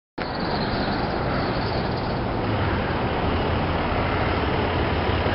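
Steady outdoor background noise with a low rumble, cutting in abruptly just after the start.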